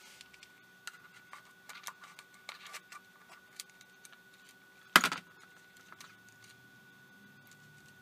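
Light clicks and scratches of a night vision monocular's plastic housing, tube mount and wires being handled and fitted together, with one sharper knock about five seconds in.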